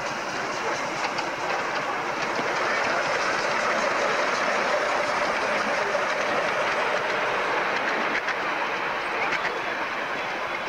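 Miniature live-steam locomotive running past close by, hauling a riding car of passengers: a steady hiss of steam with a few clicks of wheels over rail joints near the end.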